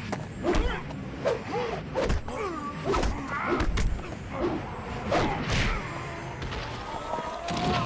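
Kung fu film fight sound effects: a quick, irregular string of about a dozen punch and block hits, mixed with cloth swishes from sleeves as the two fighters trade blows at close range.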